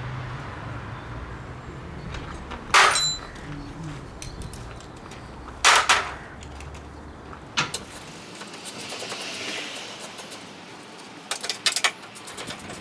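Sharp metallic clanks and knocks of hand tools working on car bodywork, as the bolts holding a front wing are undone: loud strikes about three, six and seven and a half seconds in, then a quick run of clicks near the end.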